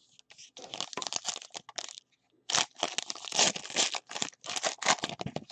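Foil trading-card pack wrappers being torn open and crinkled by hand. The crackling comes in two stretches, with a short pause about two seconds in.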